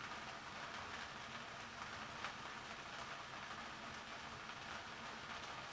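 Chopped onion frying in oil in a pan: a faint, steady sizzling hiss with scattered small crackles.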